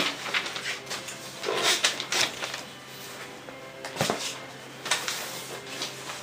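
Cardboard sign and paper envelopes handled close to the microphone: rustling and scattered clicks, with a sharper knock about four seconds in.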